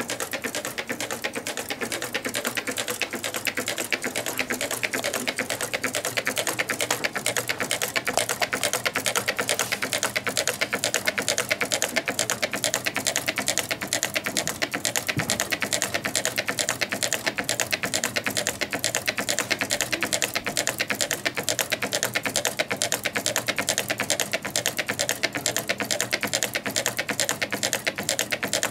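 Twin-cylinder Meccano Stirling engine running steadily: its displacers land at each end of their travel, making a rapid, even clatter of light clicks, like a typewriter.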